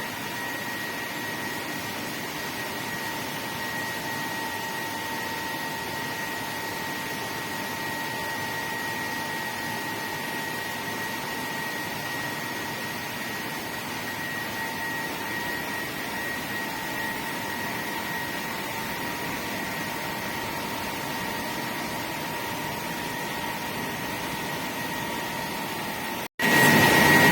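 Rice-milling machinery running steadily, a constant hum with a high whine over it. It cuts off abruptly near the end, where a louder machine noise begins.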